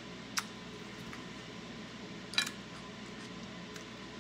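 Soft, close-miked chewing of cooked octopus over a steady background hiss. There is a sharp tick under half a second in, and a short clatter about two and a half seconds in as wooden chopsticks are picked up off the ceramic plate.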